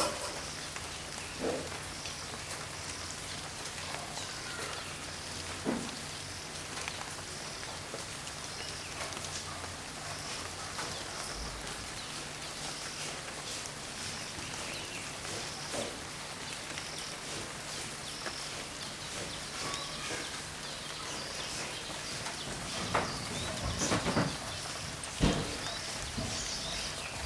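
Steady rain with scattered drips and knocks, over a low hum. A few louder thumps near the end.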